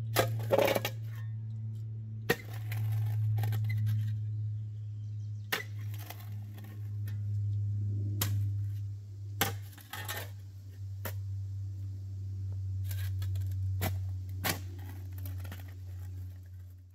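Steel shovel blade digging into hard, gravelly road-base soil: sharp clinks and scrapes at irregular intervals, several seconds apart, over a steady low hum.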